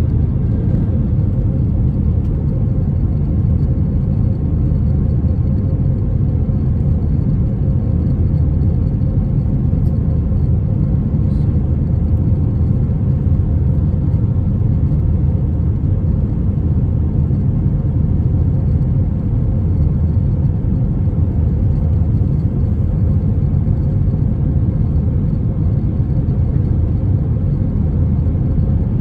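Steady low rumble of an Airbus A321-200's cabin in flight, heard from a window seat over the wing: the noise of its IAE V2500 turbofan engines and of the airflow past the fuselage.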